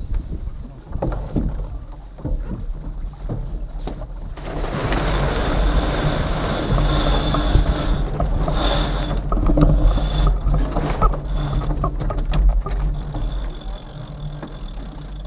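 Sailboat going about in a tack: wind buffeting the microphone and water noise, with scattered knocks and clicks from the boat's gear, swelling to a louder rush for several seconds in the middle.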